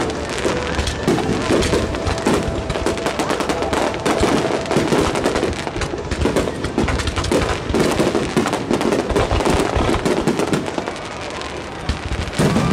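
Aerial firework shells bursting in rapid succession, a dense barrage of booms and crackling with no let-up.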